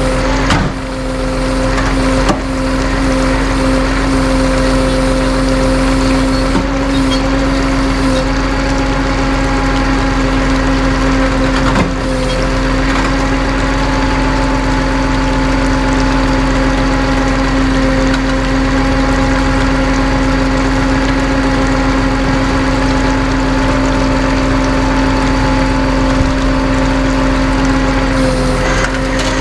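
Vehicle engine running at a steady speed, its hum holding unchanged, with a few light knocks here and there.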